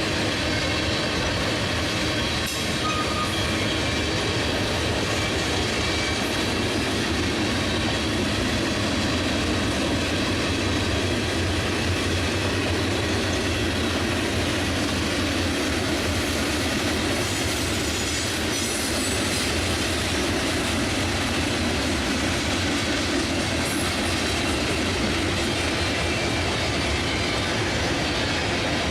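Freight train cars rolling past, a steady rumble with wheels clattering over the rails and a faint brief wheel squeal now and then.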